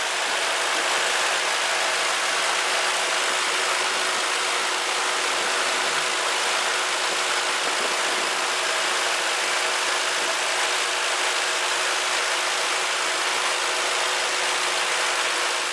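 Ford Crown Victoria's 4.6-litre V8 running at a steady idle, with the engine-bay noise even and unchanging throughout.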